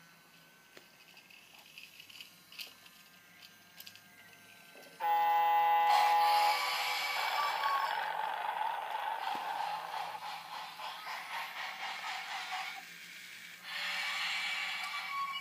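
Battery-powered toy train running on wooden track, its motor and wheels clattering. About five seconds in, a sudden loud electronic toy sound of several steady tones sets in, and the clattering stays loud until a short drop near the end, when a second loud burst starts.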